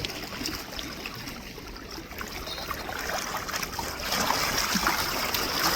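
Small waves lapping, a steady water sound that grows louder about four seconds in.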